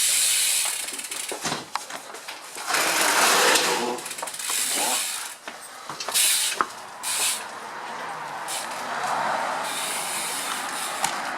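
Mechanical clicking and rattling of tools and bicycle parts being worked on, in irregular bursts with a few sharp clicks.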